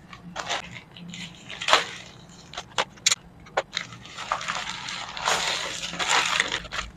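Grey plastic courier mailer bag being handled and torn open: scattered crinkles and crackles of the plastic, then a longer tearing rip about five seconds in.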